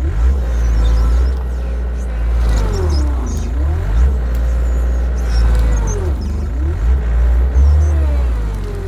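An engine running with a deep rumble, its pitch dipping and rising again several times, about every three seconds.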